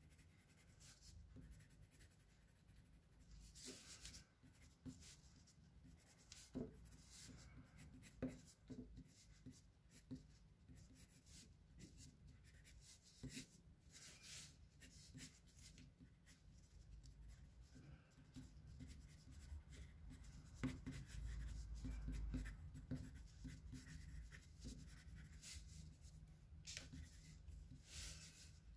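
Faint scratching of a drawing tool on paper laid on a clipboard: short sketching strokes, with a few longer, louder strokes about four seconds in, around fourteen seconds in and near the end.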